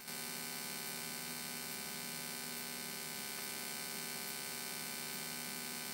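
Steady, even hum with several held tones: the Cessna 172N's engine and cabin drone in the climb, as it comes through the intercom and headset audio feed.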